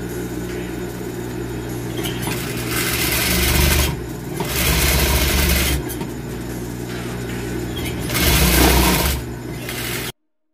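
Industrial high-speed sewing machine stitching a seam: the motor hums steadily, with three louder runs of stitching, each about one to one and a half seconds long. The sound cuts off suddenly near the end.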